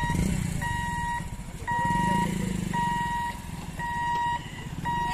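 Level-crossing warning buzzer beeping steadily, about once a second, as the electric boom barrier lifts, with motorcycle engines running as the bikes move off across the tracks.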